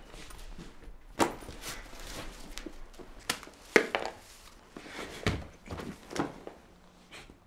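A series of sharp knocks and thuds, about five, spaced one to two seconds apart over a faint room background.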